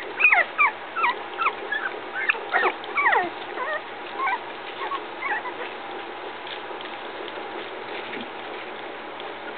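Three-week-old puppies whimpering and squeaking: many short, high cries that slide down in pitch, coming thick and fast for the first five or six seconds, then dying away.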